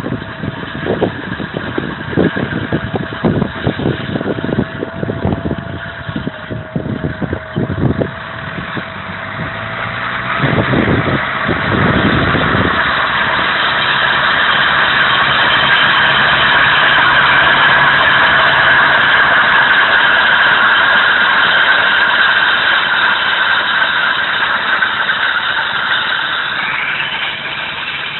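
Fiat 70-66 DT tractor's four-cylinder diesel engine running steadily under load as it pulls a land roller, growing louder as it passes close and easing off toward the end. Wind buffets the microphone in gusts during the first several seconds.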